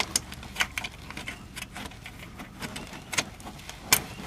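Scattered light clicks and taps of small parts being handled as the wheel-speed sensor wire is plugged into its hole on the hub, with two sharper clicks near the end.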